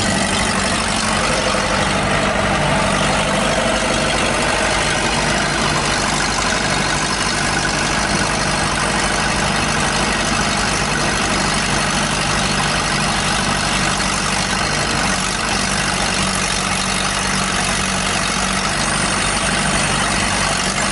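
Diesel engine of a Case 1845 skid steer running steadily at idle.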